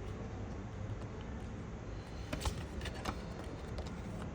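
Light handling noises while the mouse's box contents are unpacked: a few short clicks about two and a half and three seconds in, over a steady low hum.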